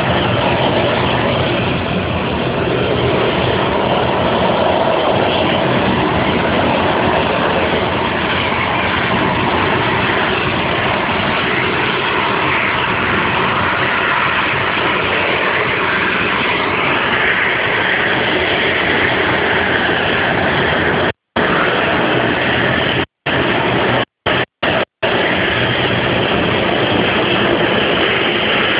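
Jet engines of a Boeing 737-800 (CFM56 turbofans) running at taxi power in a steady roar, cut by a few brief dropouts in the audio a little past two-thirds of the way through.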